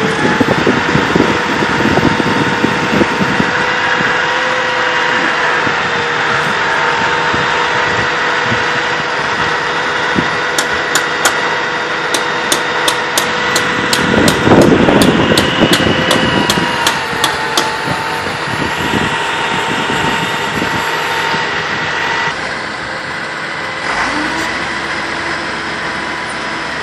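Utility bucket truck engines running steadily at idle with a held whine. A run of light, quick ticks, about three a second, comes through the middle.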